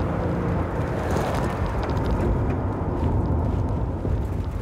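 Steady engine and road noise of a police patrol car driving, heard from inside the cabin as a low, even rumble.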